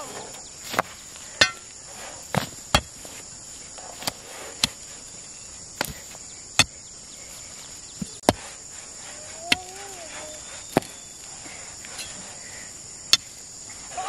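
About a dozen sharp knocks at uneven intervals, over a steady high drone of insects.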